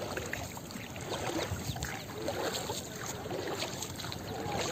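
Water lapping and splashing around a wooden rowing boat as it is paddled along.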